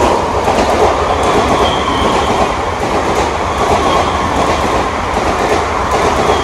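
Mumbai Western Railway suburban local train running past along the platform: a steady loud rumble of the cars with wheel clatter on the rails, and a faint short high wheel squeal about two seconds in.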